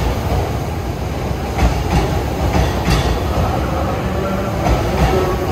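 JR East E231 and E233 series electric train passing through a station without stopping: a steady rumble, with the wheels clacking over rail joints.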